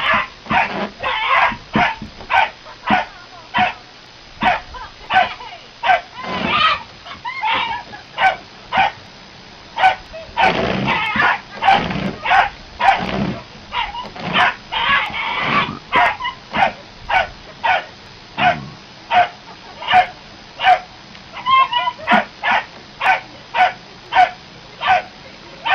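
A dog giving short, high yipping barks over and over at an even pace, about two a second.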